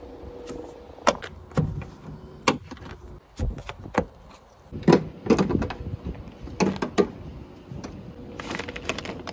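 Plastic push-in trim clips snapping out of a van's rear-door trim panel as it is pried off with a plastic trim removal tool: a string of sharp snaps and knocks at irregular intervals.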